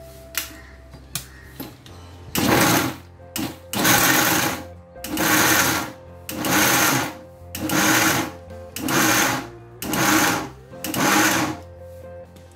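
Electric mixer grinder with a steel jar switched on and off in about eight short bursts, each under a second, grinding roasted green chilies, garlic and peanuts to a coarse paste.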